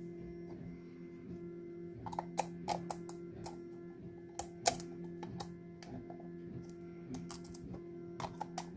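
Sharp plastic clicks and taps as 3D-printed plastic parts are handled and pressed against a clear acrylic tube: a cluster a couple of seconds in, two louder knocks midway, a few more near the end. Soft background music plays steadily underneath.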